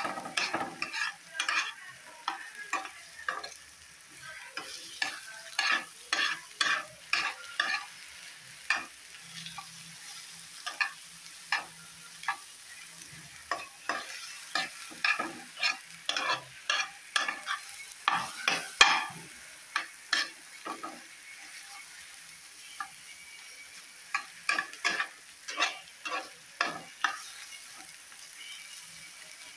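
A wooden spatula stirs and scrapes scrambled eggs around a nonstick frying pan, in quick strokes of about two a second, over a faint sizzle of frying. The strokes pause for a couple of seconds about two-thirds of the way through, then start again.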